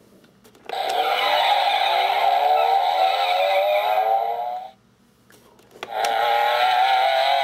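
Miguel Camino lights-and-sounds toy car's sound chip playing a race-car engine rev effect through its small speaker, rising steadily in pitch for about four seconds before cutting off. After a few faint button clicks, a second rev starts near the end.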